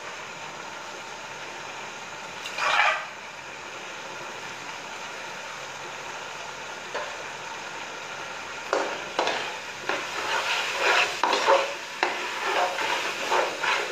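Raw polao rice sizzling in hot spiced oil in a large metal pot, stirred with a metal spatula. A steady hiss fills the first half with one short burst of scraping about three seconds in; from about nine seconds on, the spatula scrapes and turns the rice in repeated strokes.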